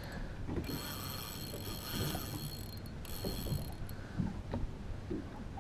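Spinning reel's drag buzzing as a hooked mulloway pulls line off: a run of about two seconds starting about half a second in, then a shorter one after a brief break.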